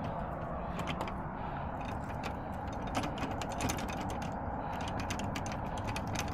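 A locksmith's metal tool working a locked door's lock and latch: irregular small clicks and scrapes over a steady low background hum.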